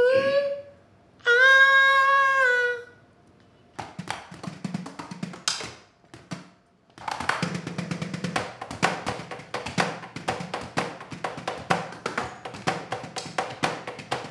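A held sung note near the start, then an electronic drum kit being played with sticks. A few sparse hits come first, then a fast, steady run of hits from about seven seconds in.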